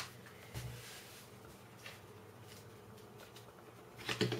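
Small 3D-printed plastic puzzle pieces clicking against each other and the wooden tabletop. There are a few faint clicks early on and a louder cluster of clicks about four seconds in, as pieces are picked from the pile.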